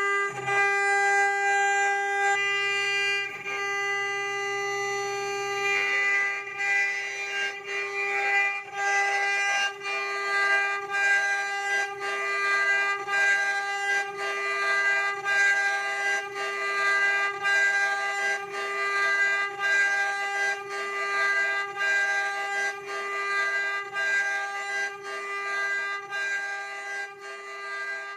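Multi-spindle CNC wood router running, its spindles giving a steady high whine while the bits cut a groove in a wooden board. A regular pulse comes roughly once a second, and the sound fades out near the end.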